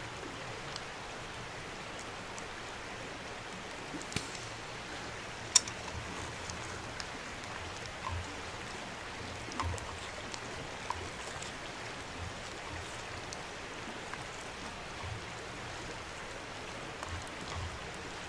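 Steady rush of flowing river water, with a couple of sharp pops from the campfire and a few soft knocks of a spoon stirring food in a metal pot.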